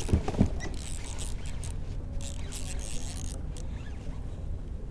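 Close handling noise from gloved hands working with a fishing catch or lure: a couple of dull knocks at the start, then scratchy rustling and small clicks that fade after about three and a half seconds.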